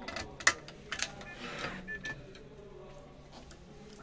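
A few sharp clicks and knocks from a badminton racket being handled on a stringing machine's mount, the loudest about half a second in, with a brief scraping rustle around a second and a half in.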